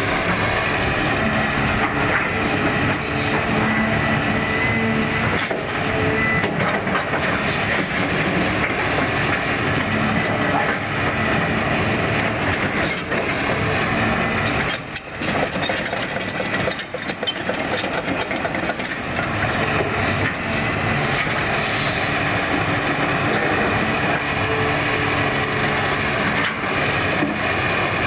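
Caterpillar 320D2 hydraulic excavator working: its diesel engine runs continuously under load as the boom, arm and bucket move, with two brief lulls about halfway through.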